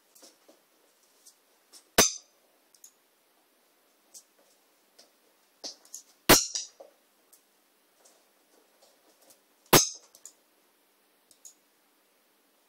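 A pet parrot's small toy clinking sharply against a tile floor three times, about two, six and ten seconds in, each knock ringing briefly, with faint taps of beak and claws on the tiles in between.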